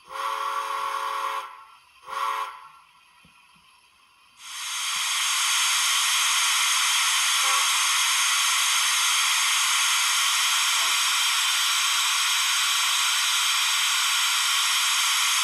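SoundTraxx Tsunami DCC sound decoder in a Hornby A4 model locomotive, playing through a tiny sugar-cube speaker. It sounds a steam whistle, one blast of about a second and a half and then a short toot. About four seconds in, a steady hiss of steam starts and keeps going.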